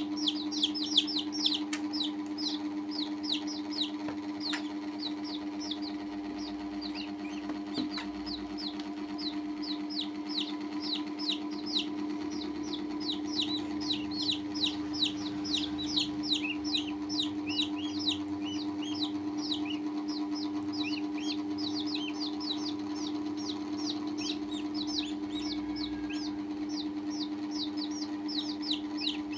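Baby chicks and a duckling peeping without pause: a rapid run of short, high, falling peeps, several a second. A steady low hum runs underneath.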